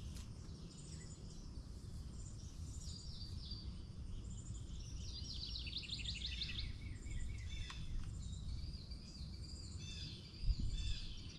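Songbirds chirping and calling repeatedly, with a quick run of trilled notes about halfway through, over a steady low rumble; a dull low thud comes near the end.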